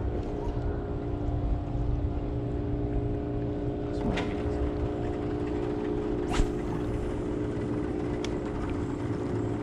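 Steady engine drone of a motorboat running at a distance, holding one even pitch, over a low rumble of wind and water. A few sharp clicks are heard, the loudest a little past halfway.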